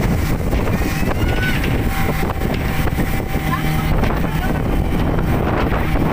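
Speedboat running at speed across open water: a steady engine drone mixed with rushing water and wind buffeting the microphone.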